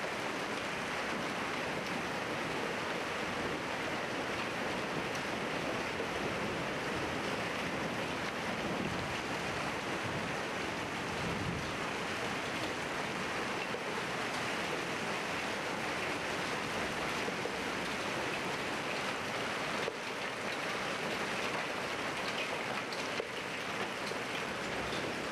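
Heavy rain mixed with hail falling steadily, an even rushing hiss, with a few faint ticks near the end.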